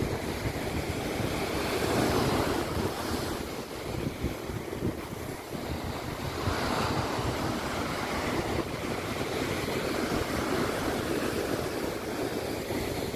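Heavy storm surf breaking and washing up a sandy beach, with gusty wind rumbling on the microphone. The surf swells louder about two seconds in and again around seven seconds.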